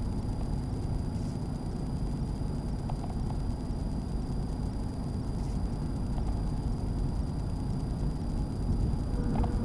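Steady road and engine noise inside the cab of a Ford F-350 diesel pickup cruising at highway speed, with a few faint clicks near the end.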